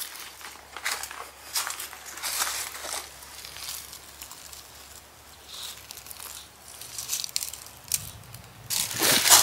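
Dry leaf litter crackling and rustling in irregular bursts under a Greek tortoise crawling through it, loudest near the end.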